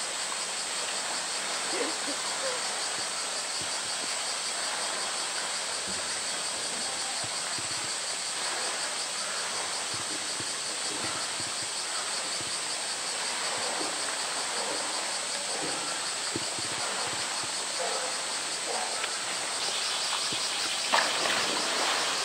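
Steady drone of summer insects, with a second, higher buzzing band joining near the end. About a second before the end a polar bear plunges into the pool with one sharp splash.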